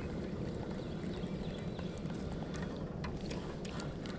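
Spinning reel being cranked as a lure is retrieved: a low steady whir with scattered light clicks in the second half.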